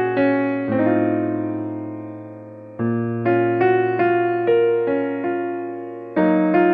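Background piano music: slow struck chords and single notes, each fading after it is played, with one chord held and dying away for about two seconds in the middle.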